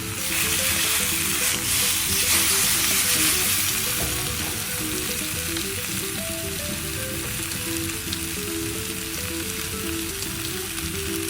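Grilled chicken pieces sizzling steadily as they reheat over a low gas flame, with background music underneath.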